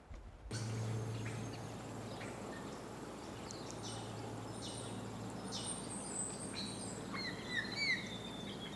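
Birds chirping and calling, with short curved whistles near the end, over a steady low hum and even background noise.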